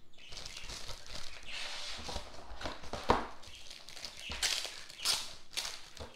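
Clear LDPE plastic bag crinkling and rustling as headphones are slid out of it, with a few louder crackles in the second half.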